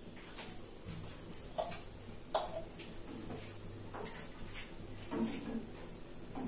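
A few faint scattered ticks and clicks over a low steady hum, from a steel pot of milk and water heating on a gas burner on high flame.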